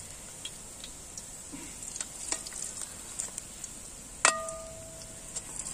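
Urad dal vadas sizzling and crackling as they deep-fry in hot oil. A perforated metal ladle clinks against the metal pan about two seconds in, then strikes it with a ringing clang a little past four seconds.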